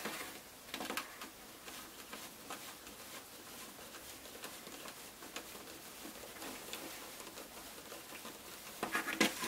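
Faint ticks and scratches of a hand screwdriver turning small screws and nuts down against a thin plastic helmet shell, with a few sharper clicks near the end.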